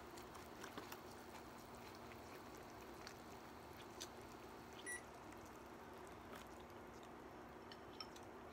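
Near-silent room tone with a steady low hum and a few faint clicks of chopsticks against dishes. A brief faint beep about five seconds in.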